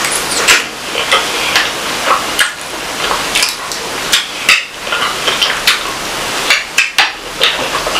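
Close-miked eating: irregular chewing, smacking and mouth clicks, many short sharp clicks a second or so apart.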